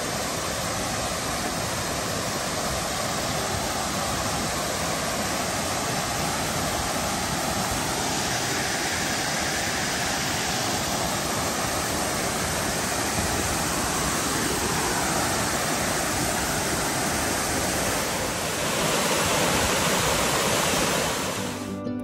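Waterfall cascading over stepped rock ledges: a steady rush of falling water that grows louder near the end.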